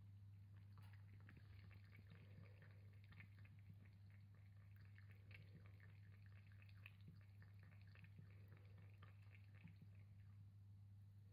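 Orange tabby cat lapping water through the centre of a floating-disc water bowl: faint, quick wet laps, over a steady low hum.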